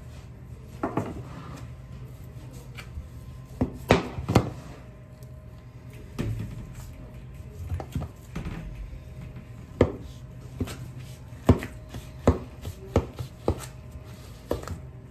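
Long butcher's knife cutting the hard, dried crust off a dry-aged beef rib loin on a plastic cutting board: quiet slicing with irregular sharp clicks and taps of the blade and meat against the board. A steady low hum runs underneath.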